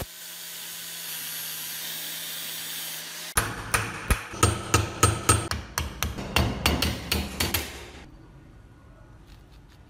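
Angle grinder whirring steadily as its disc grinds down the rusty iron padlock's rivet heads. After a cut about three seconds in, a hammer strikes a steel pin punch rapidly, about four blows a second for some four seconds, driving the rivets out so the lock case can be opened.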